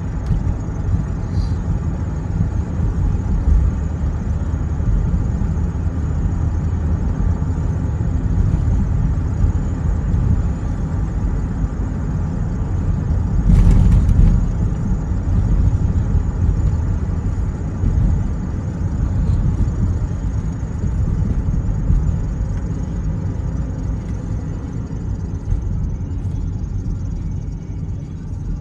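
Steady road and engine rumble of a moving car, heard from inside the cabin, with one brief louder rush about halfway through.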